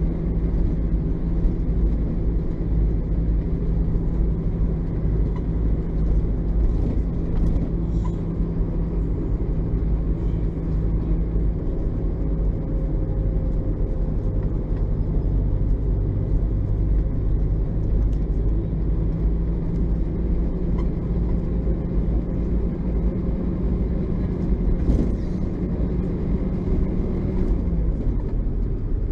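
LAZ-699R bus's ZIL-375 V8 petrol engine running steadily at an even speed, with a constant low note and a slight change in the note about a second before the end.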